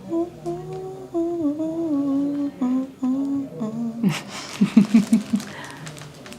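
A person humming a short wandering tune, then a breath and a quick run of four or five loud pulses near the end.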